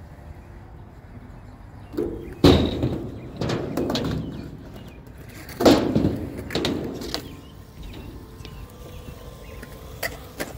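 Skateboard on a mini ramp: wheels rolling across the ramp, with two loud board impacts about two and a half and five and a half seconds in, then quieter rolling and a couple of light clicks near the end.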